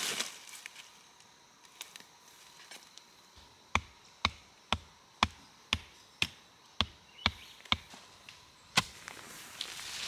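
Repeated sharp blows of a tool on something hard, about ten of them at roughly two a second with a short gap before the last, each with a brief ring.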